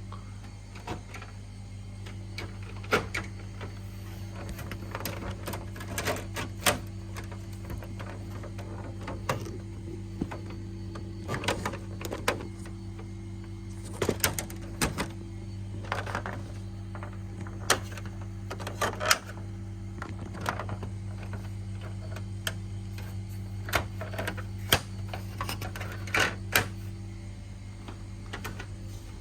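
National/Panasonic room air conditioner running with a steady low hum, with irregular sharp clicks and taps over it.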